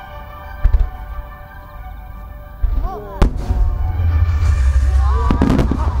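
Aerial firework shells bursting over music played through the show's loudspeakers. There are sharp bangs less than a second in and just after three seconds, and the bursts merge into a continuous low rumble through the second half.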